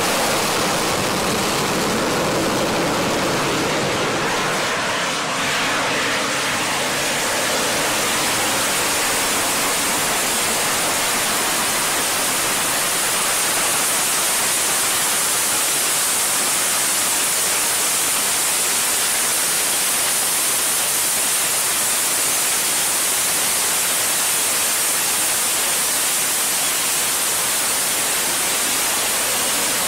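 AV-8B Harrier II's Pegasus vectored-thrust turbofan in hover during a vertical landing: a loud, steady rushing noise with no clear rise or fall.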